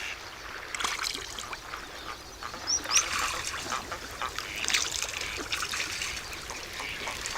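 Ducks quacking in short, irregular calls over water, with splashing and trickling water mixed in.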